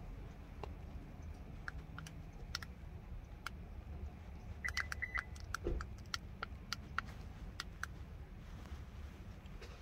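Scattered light clicks of buttons being pressed during Toyota key-remote programming, with three short high beeps and a dull thump about halfway through.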